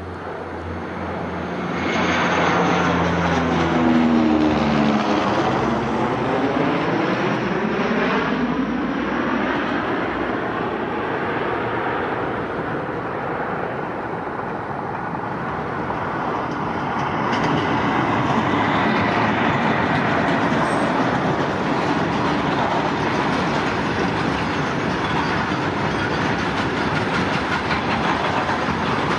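Train hauled by an Indian Railways conventional electric locomotive passing close at speed. It grows louder about two seconds in as the front goes by, then its coaches or wagons keep running past with a steady rumble of wheels on rail.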